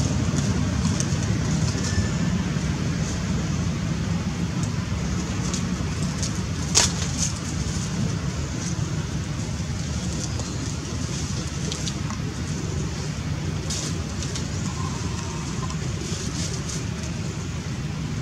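Steady low outdoor rumble with scattered light crackles of dry leaf litter and one sharp click about seven seconds in.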